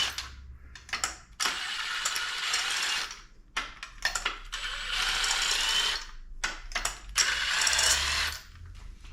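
Cordless impact gun spinning out bolts that have already been cracked loose by hand, so it runs freely without hammering, in several bursts of one to two seconds. Between bursts there are short metallic clicks.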